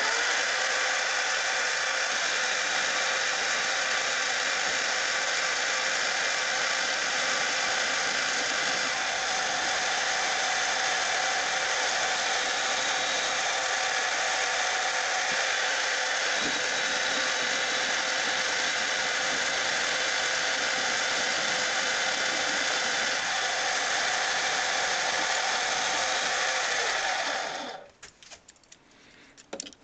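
Metal lathe running steadily, taking a light cut of about ten thousandths to turn down 1-inch bar stock; it stops suddenly near the end.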